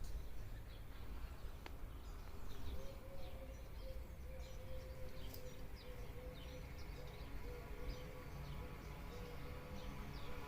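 Small birds chirping, with short high calls scattered throughout, over a low rumbling background. A faint steady hum comes in about three seconds in.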